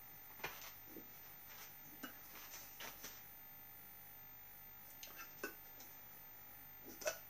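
Quiet room tone with a few faint, scattered clicks and knocks as a stainless self-stirring mug is fetched and handled.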